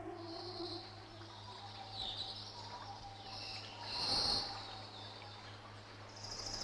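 Birds chirping in the forest: short, high calls every second or so, the loudest a little past the middle, over a steady low hum.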